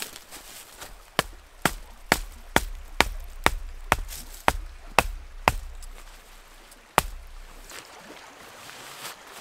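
Poll of a hatchet hammering a wooden tent stake into the forest floor: about ten sharp knocks at roughly two a second, then one last strike about a second and a half later.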